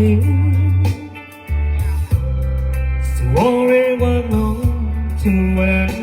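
Slow ballad music with no singing: a lead guitar plays long held notes, some of them bent, over a steady bass line. The music briefly drops away about a second in.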